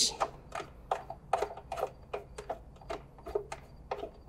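Light, quick clicks, about three or four a second, as the hand screws on top of a riding mower's air filter housing are turned out by hand.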